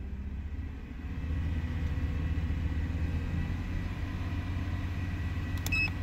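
BMW N52 inline-six engine running steadily just above idle, slightly louder from about a second in as engine speed is raised from about 1,270 to 1,640 rpm. The engine is running smoothly at this moment, with the low-speed misfire not showing.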